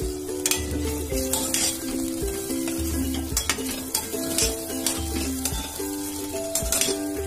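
Drumstick pieces sizzling in hot oil and tomato masala while a steel spoon stirs and scrapes, clinking against the stainless-steel pressure cooker several times. Background music with a pulsing bass runs underneath.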